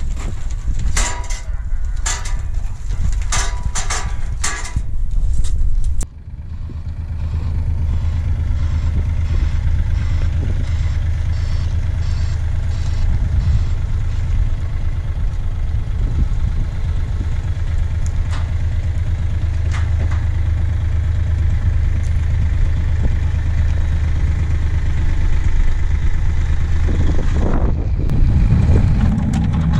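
A quick run of sharp bangs, then, after a break about six seconds in, a Linde forklift's engine running steadily with a low drone while it carries a large steel plate on its forks.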